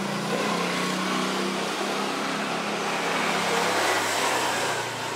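A motor vehicle engine running, heard as a steady low hum with a broad wash of noise that slowly drifts in pitch.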